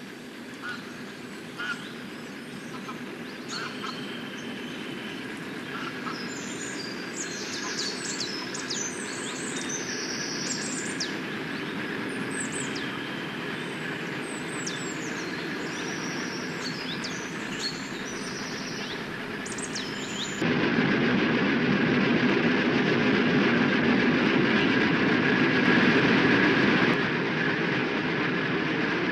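Diesel engine of a motor cargo barge running steadily and slowly growing louder as it approaches, with small birds chirping over it. About two-thirds of the way in the engine noise jumps suddenly louder and closer, and the chirping stops.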